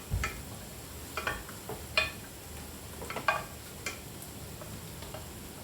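A cooking utensil scraping and knocking against a pan as vegetables are stir-fried, about five short strokes spaced roughly a second apart, over a faint frying sizzle.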